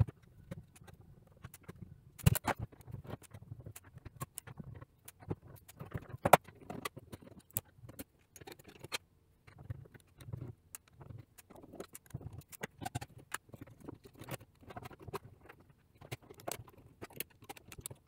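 Rapid, irregular clicks and light metallic clatter of small screws, a screwdriver and the sheet-metal case and shield parts of a Dell Wyse 5060 thin client being handled as it is taken apart and reassembled. Two louder clicks stand out about two and six seconds in.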